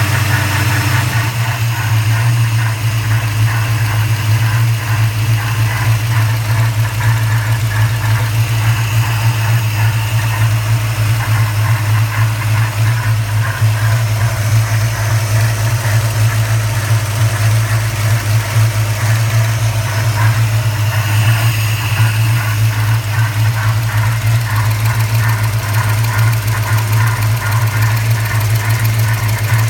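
1994 Chevrolet Caprice's LT1 5.7-litre V8 running with the hood open, a steady low hum under an odd whooshing, rubbing noise whose cause is unknown.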